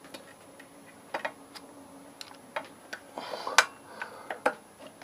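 Motorcycle brake pads and caliper parts clicking and tapping as they are worked into the rear brake caliper: a string of sharp, irregular small clicks, busiest about three seconds in.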